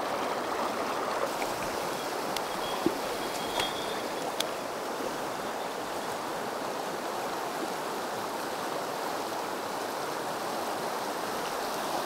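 Mountain stream flowing steadily, with a few faint clicks in the first few seconds.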